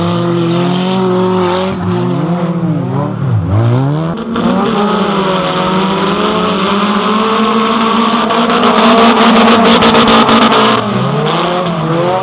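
Engines of several wreck-race cars revving and accelerating on a dirt track, the pitch climbing and dropping again and again with throttle and gear changes. About two-thirds of the way in, several engines rev hard together for about three seconds, the loudest stretch.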